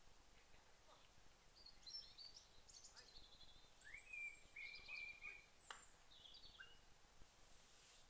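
Faint birdsong from a small garden bird: a few seconds of high chirping and whistled notes, some held and some sliding. A single sharp tick comes about three-quarters of the way through.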